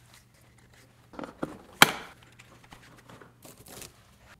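Handling noises: short rustling and crinkling with a few sharp clicks, the loudest click about two seconds in.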